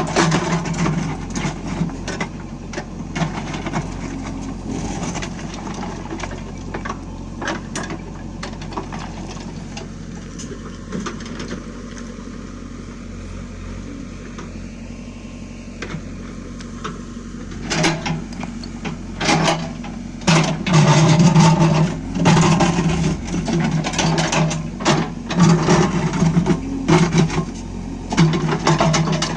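JCB 3DX backhoe loader's diesel engine running while the backhoe digs, with scattered clanks and knocks. From about eighteen seconds in, the engine comes under load in repeated surges, a second or two apart, as the arm works.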